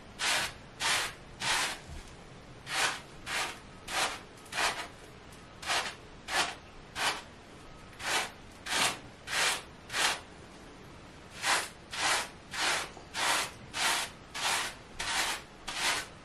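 Hair brush scrubbing through shampoo-lathered short curly hair, a wave brush being run over the scalp in brisk, even strokes about two a second, with a couple of short breaks.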